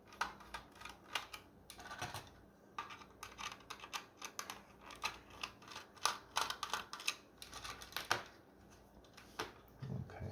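Small screwdriver backing out tiny screws from the plastic body of a 1:24 slot car, with irregular light clicks and ticks of metal on plastic.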